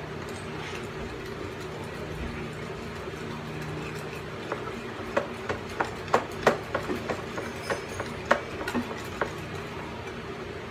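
Wire whisk beating a liquid egg mixture in a bowl. From about four seconds in, it clicks sharply and irregularly against the side of the bowl, two to four times a second, over a steady low hum.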